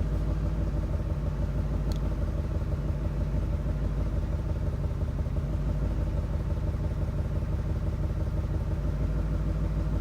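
2000 Ford F-250's 5.4-litre V8 idling steadily, with a cylinder 5 misfire.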